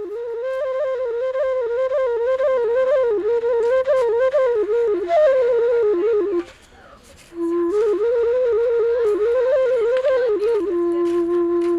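Background music: a solo flute playing a wavering, ornamented melody in short phrases. It pauses briefly about six and a half seconds in, then resumes and ends on a long held lower note.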